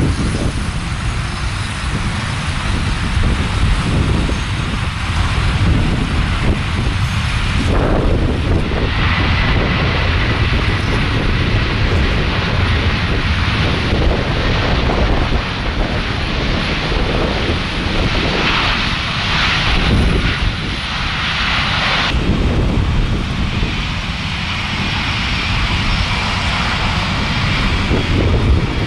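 Lockheed L-1011 TriStar's three Rolls-Royce RB211 turbofans running loudly and steadily as the jet touches down and rolls out, then as it taxis. The sound changes abruptly about eight and twenty-two seconds in.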